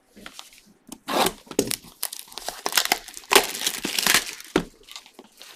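Plastic wrapping on trading-card packaging being torn open and crumpled: irregular crinkling and crackling, loudest about a second in and again through the middle.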